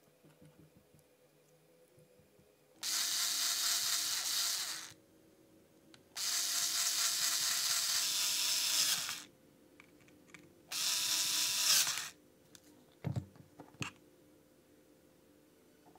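Einhell cordless screwdriver running in three bursts of a few seconds each, driving small screws through red clamp strips into a 3D-printed bearing housing. A couple of light knocks follow near the end.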